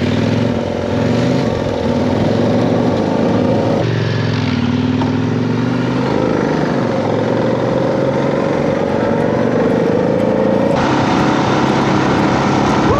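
Motorcycle engine running under load, its pitch rising and falling with the throttle; the sound changes abruptly a few times between shots.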